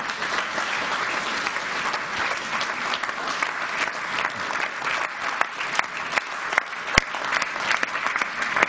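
Audience applauding steadily, with one sharp knock about seven seconds in.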